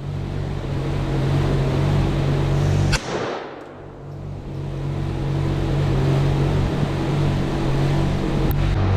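Steady low hum of a running vehicle with a rushing noise that builds up, broken by one sharp click about three seconds in.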